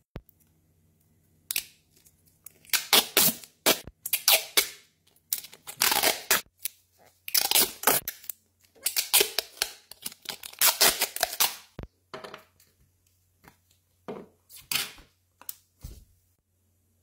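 Packaging being torn open and handled: irregular bursts of tearing and rustling with a few sharp clicks, for about fifteen seconds.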